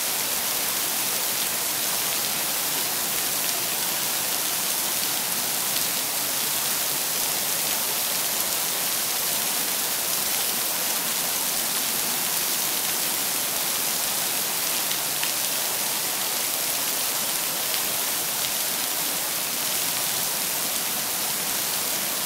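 Heavy tropical downpour: a steady, dense hiss of rain, with water pouring onto and off a glass roof.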